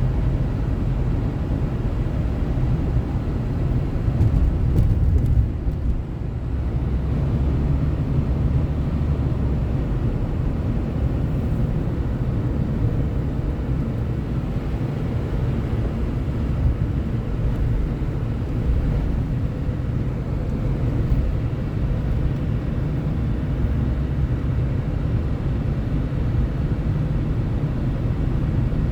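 A car driving, with a steady low rumble of road and engine noise that swells slightly about four to five seconds in.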